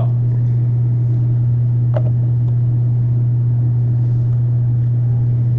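A loud, steady low hum, with a single faint click about two seconds in.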